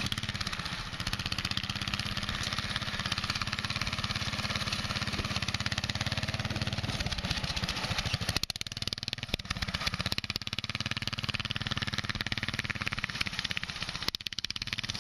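Predator 420cc single-cylinder go-kart engine running as the kart drives across a grassy field. The sound shifts abruptly about eight seconds in and again near the end.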